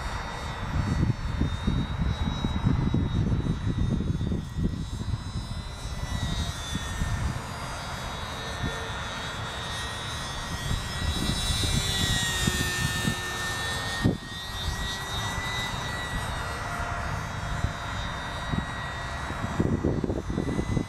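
Radio-controlled model biplane flying overhead, its motor a steady high-pitched drone that dips a little in pitch around the middle and comes back up. Under it, a loud gusty low rumble of wind on the microphone, with one sharp click partway through.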